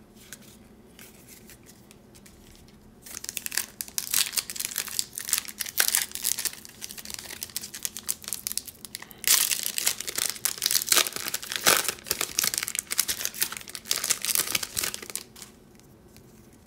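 Foil trading-card pack wrapper torn open and crinkled by hand, starting about three seconds in, louder in the second half, and stopping shortly before the end.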